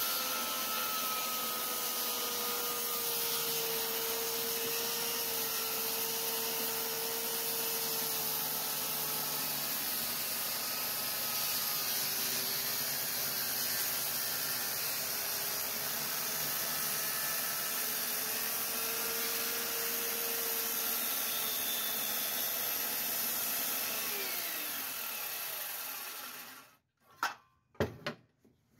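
Corded circular saw ripping a 2x4 lengthwise, its motor whine dipping in pitch for a while midway through the cut. Near the end the saw is switched off and winds down with a falling whine, followed by a few sharp wooden knocks.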